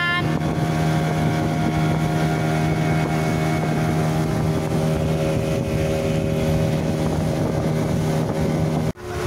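Speedboat engine running steadily under way, a constant hum over the rush of the boat's passage. The sound cuts out for an instant near the end.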